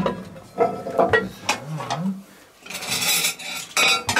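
Cast-iron Dutch oven being handled: several sharp metal knocks and clinks in the first half, then a rough scraping rub over the last second and a half. A brief hummed voice sound comes in the middle.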